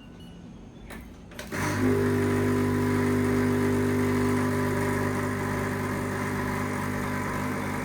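Espresso machine pump starting with a click and running steadily as a shot is brewed: an even, constant-pitched hum.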